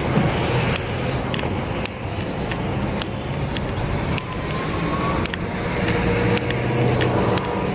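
Street traffic: vehicle engines running and passing on the road, a steady low hum under noise. A few sharp clicks are scattered through it.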